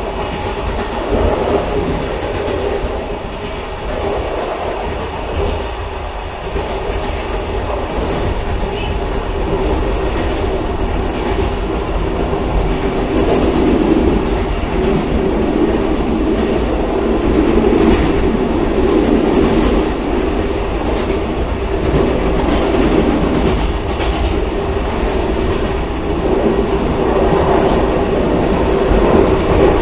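Railcar running along the track with a steady rumble and a droning hum that grows louder about twelve seconds in, with occasional faint clicks from the rails.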